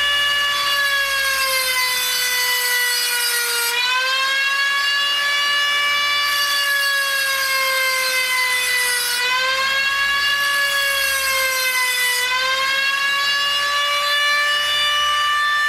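Dremel rotary tool with a cutoff wheel running at high speed, cutting slots into stripped Phillips screw heads: a steady high whine with a gritty grinding hiss in three spells, the pitch sagging each time the wheel bites and recovering after.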